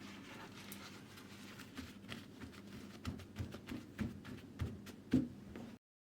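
Scattered light clicks and knocks over a faint steady hum, with one louder knock about five seconds in, then the sound cuts off suddenly.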